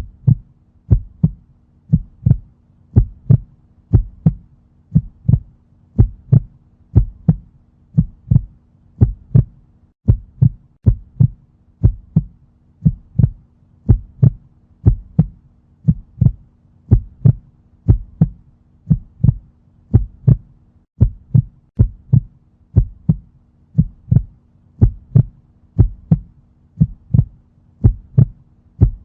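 Heartbeat sound effect: steady paired lub-dub thumps, about one beat a second, over a faint steady low hum.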